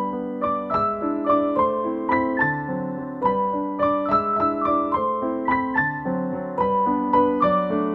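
Background piano music: a steady melody of struck notes, several a second, over lower held notes.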